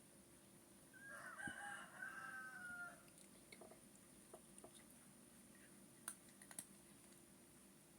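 A rooster crowing once, a drawn-out call of about two seconds with a short break in the middle, starting about a second in; a few faint clicks follow.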